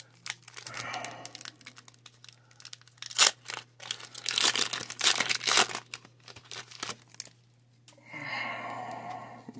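Foil Pokémon booster pack being crinkled and torn open by hand: irregular crackling and ripping, with a sharp loud tear about three seconds in and a busy run of crinkling over the next few seconds.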